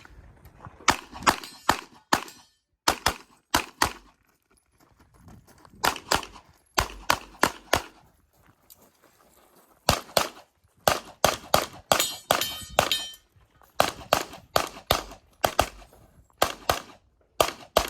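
Handgun shots fired in quick strings during a USPSA stage, broken by short pauses. A brief metallic ring sounds among the shots about twelve seconds in.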